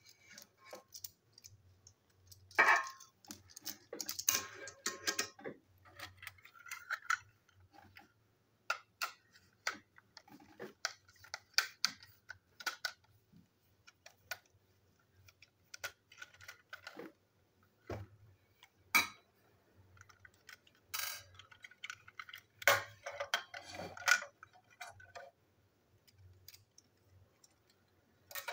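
Irregular light clicks and rattles of hard plastic toy train parts, a wheeled chassis and a locomotive body, being handled and fitted together, coming in small clusters with pauses between.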